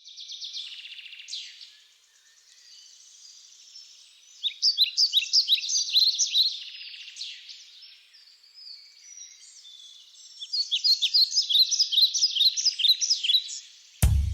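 Birds chirping and twittering, many short quick calls overlapping, with two busier, louder spells, one about four seconds in and one about ten seconds in.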